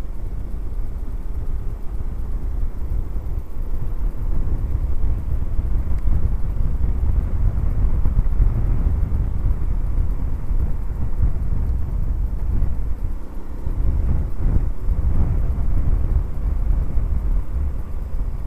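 Low, steady rumble of wind on the microphone, with a Honda C90 Cub's small single-cylinder four-stroke engine running as the bike rides slowly along a lane. The rumble dips briefly about two-thirds of the way through.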